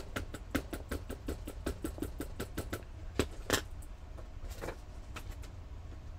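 Rapid light tapping, about six taps a second for some three seconds, then a few slower, louder taps: an ink pad being dabbed onto a new rubber stamp to ink it up.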